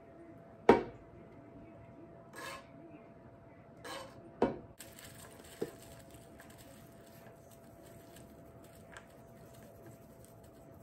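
A utensil clinks and scrapes against a granite-coated skillet as the sauce is scraped out over the chicken. There is a sharp clink a little under a second in and another about four and a half seconds in, with short scrapes between, then only faint small clicks.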